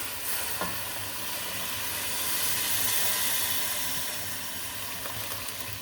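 Chicken stock poured into a hot pot of frying shredded chicken: a steady hiss and sizzle that swells toward the middle and then eases off.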